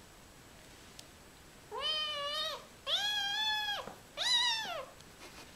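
Calico kitten meowing three times in a row, starting a little under two seconds in, each meow under a second long.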